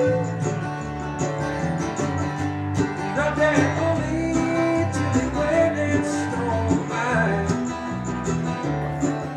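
Background music with acoustic guitar strumming.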